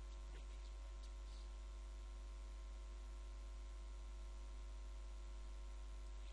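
Steady low electrical hum with a faint even hiss and a few thin steady tones above it; nothing else happens.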